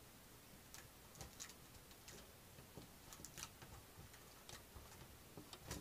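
Faint, irregular clicks and light taps of a replacement laptop screen panel being handled and seated into a Dell Vostro V131's lid.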